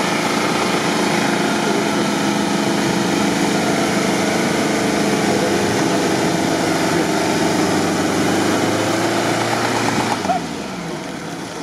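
Off-road competition 4x4 engine running hard under load while its big lugged mud tyres spin, spraying sand and wet mud. The sound drops in level about ten seconds in.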